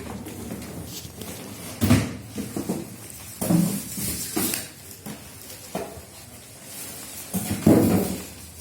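Cardboard boxes and packaging being moved and lifted: a series of thuds and knocks with rustling and scraping between them, the loudest knock near the end.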